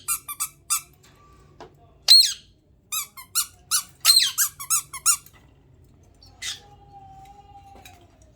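Pet budgerigars making a run of short, high-pitched squeaky chirps in quick clusters, the squeak sound they are known to do. Near the end comes a single whistle and a thin, steady held tone.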